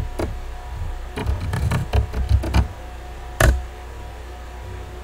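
Computer keyboard typing: a quick run of key clicks and light thuds for about two and a half seconds, then one louder single click about three and a half seconds in.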